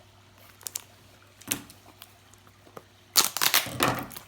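Handling noise: a couple of faint clicks, then loud crackly rustling starting about three seconds in, like packaging being handled close to the microphone.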